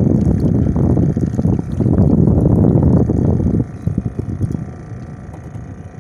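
Wind buffeting the microphone as a loud, ragged low rumble, dropping away sharply about three and a half seconds in.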